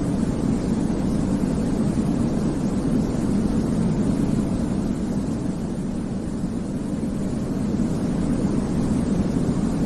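Steady, unbroken sleep-aid noise for babies: a low, rumbly rushing sound weighted toward the bass rather than a bright hiss, dipping slightly in loudness midway.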